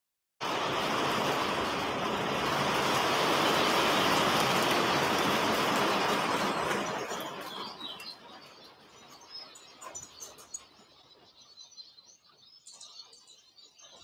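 A loud, steady rushing noise cuts in at the start and fades away after about seven seconds. Small garden birds chirp and twitter faintly around a feeder, and can be heard clearly once the rushing has faded.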